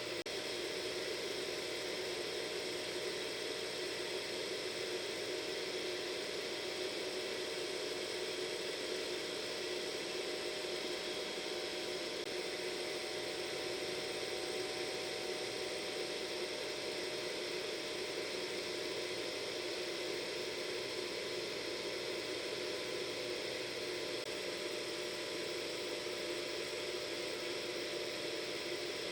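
Hair dryer running steadily, a constant blowing hiss with a steady motor whine on top.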